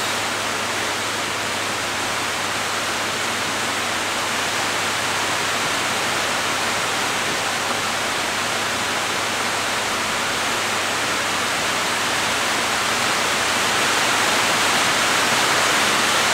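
Electric fans running: a steady, even rushing noise with a faint low hum, growing slightly louder near the end.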